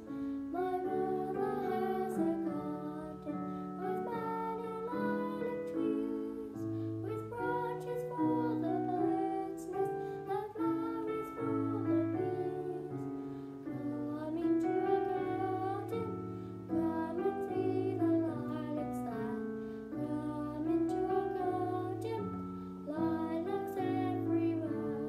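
A schoolgirl singing a solo song over a piano accompaniment.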